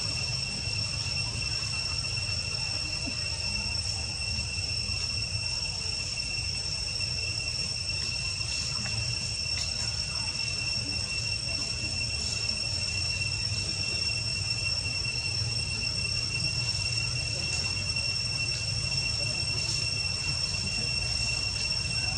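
A steady, high-pitched insect drone, one unbroken shrill tone, over a low rumble.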